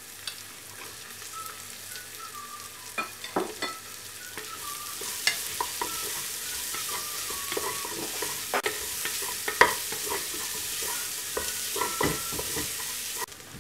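Chopped onions sizzling in hot oil in an aluminium pressure cooker while a wooden spatula stirs them, scraping and knocking against the pot. The sizzle gets louder about four seconds in.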